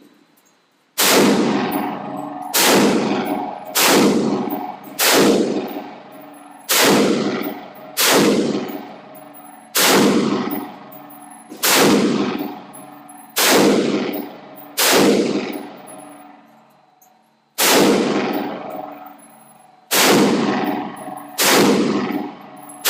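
A string of about fifteen gunshots from a semi-automatic firearm, fired one every one to two seconds with a pause of about two and a half seconds in the middle. Each shot is followed by a long ringing echo.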